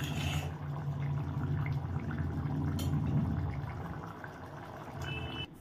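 Duck egg curry boiling in a lidded pot: a steady bubbling simmer with a low rumble, easing off after about four seconds and cutting off just before the end.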